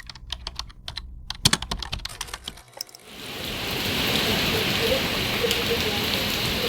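A quick run of light clicks like typing, then about three seconds in, steady heavy hurricane rain fades in and keeps pouring.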